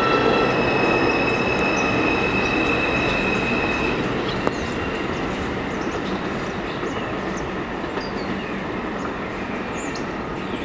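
Kawasaki R188 subway train running away along the track, its wheel and motor noise slowly fading. A high steady whine drops out about four seconds in, and there is a single sharp click shortly after.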